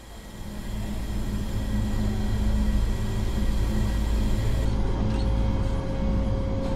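Steady low mechanical hum with several held low tones, fading in over the first second and then holding level.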